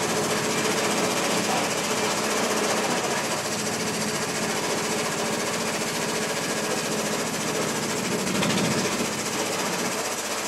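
An engine running steadily with a fast, even, rhythmic chatter.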